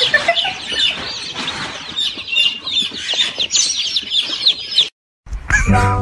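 Many baby chicks peeping together: dense, overlapping short, high chirps that cut off suddenly about five seconds in.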